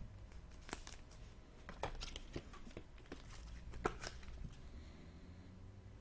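Faint rustling and light clicks of trading cards and plastic card sleeves being handled, several clicks in the first four seconds, then quieter.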